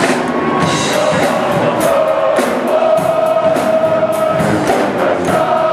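Brass and saxophone pep band playing over drums, holding long sustained chords through the middle with steady percussion strokes.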